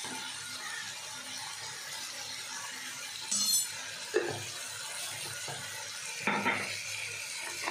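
Onions and tomatoes frying in oil in a pan, a steady soft sizzle, with a high clink of a utensil about three and a half seconds in and short knocks around four and six seconds.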